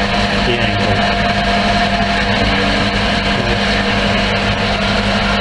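Kity 0613 bandsaw running at full speed with its blade guides off: a steady motor hum with the blade and wheels turning.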